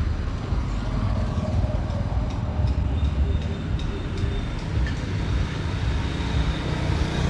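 Steady road traffic noise: a continuous low rumble of vehicles, with a faint thin tone from about three seconds in.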